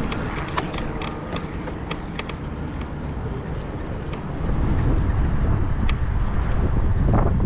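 Wind rumbling on a GoPro's microphone during a bicycle ride, getting louder about halfway through. Light, irregular clicks and ticks from the moving bike sound over it.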